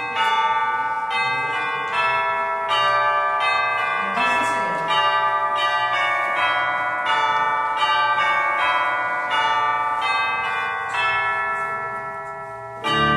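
Bells ringing a tune, one struck note about every two-thirds of a second at changing pitches, each ringing on under the next. The last note rings out for about two seconds before an organ chord comes in right at the end.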